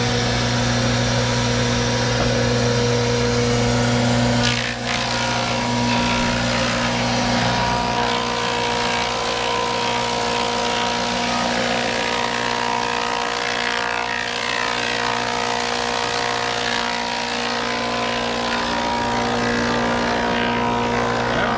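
Engine-driven sawmill machinery running steadily with a constant hum, whose tone shifts slightly about four and a half seconds in.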